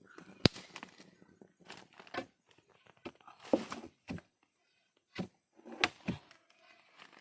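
Scattered sharp knocks with rustling and scuffing between them. The loudest knock comes about half a second in and another near six seconds; no engine is running.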